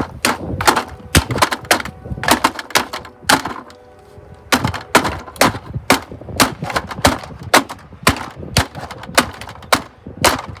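A rapid run of hard blows cracking into the plastic body of a vacuum cleaner, about two or three strikes a second, pausing briefly near the middle before going on.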